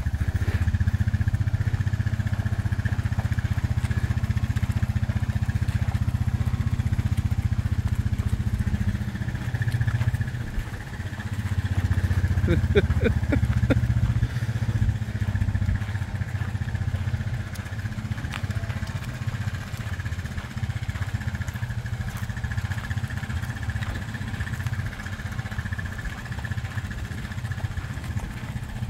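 ATV engine running steadily at walking pace, a continuous low rumble, with a brief higher-pitched sound about halfway through.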